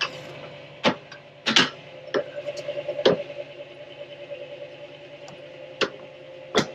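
Sharp metal clanks and clicks from a trailer's weight-distribution hitch as a spring bar is worked into its bracket, over a steady hum. There are about seven knocks, spread unevenly, with the loudest near the middle; the bar is fighting to go in because the hitch is out of alignment.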